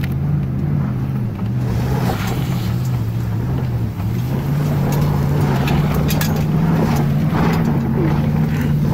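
Truck engine heard from inside the cab, its revs rising and falling again and again as the truck is spun in doughnuts on snow.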